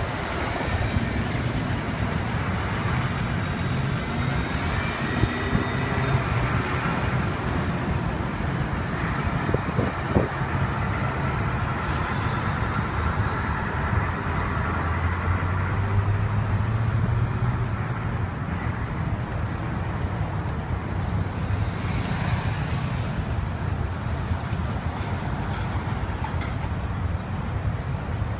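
Street traffic: the low rumble of a diesel city bus and passing cars and trucks, with a short hiss about two-thirds of the way in.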